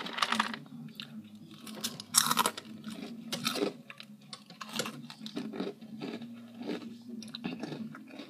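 A person chewing a mouthful of Froot Loops cereal close to the microphone: irregular crunches, with a few louder bites about two, three and a half and five seconds in.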